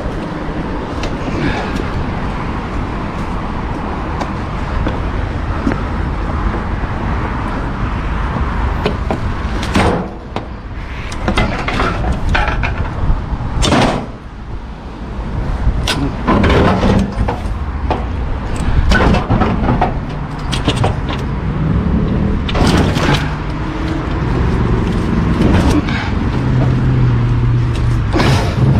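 Objects knocking and clattering as discarded items are handled and moved, in irregular bangs that come thick from about ten seconds in. Under them runs a steady low rumble.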